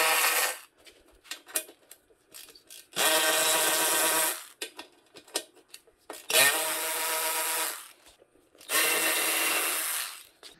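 Cordless ratchet motor whirring in short runs of about a second and a half, three times over plus the end of one run, backing out the 12 mm bolts that hold the stock exhaust on a Honda XR650L; light clicks of the socket and tool between runs.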